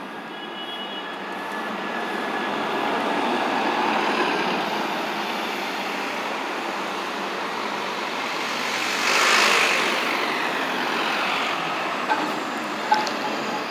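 New Flyer XD60 articulated city bus driving past, its engine and tyre noise building as it approaches and goes by. There is a brief louder rush about nine seconds in and two short clicks near the end.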